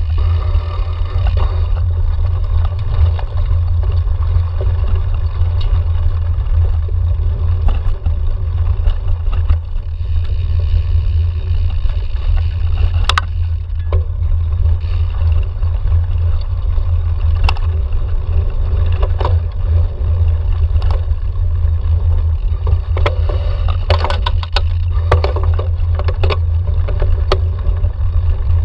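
A cyclocross bike ridden fast over a dirt forest trail: a heavy wind rumble on the handlebar microphone over the tyres running on dirt, with sharp rattles of the bike over bumps, thickest a little before the end.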